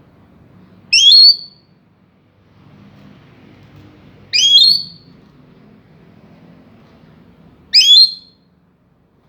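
A lory (nuri parrot) giving three loud, shrill whistled calls, each a quick upward sweep under half a second long, evenly spaced about three and a half seconds apart.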